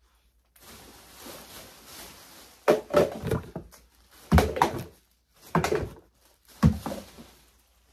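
Rustling inside a reusable tote bag, then several sharp knocks and clatters as empty plastic bath-and-body bottles are rummaged out and handled.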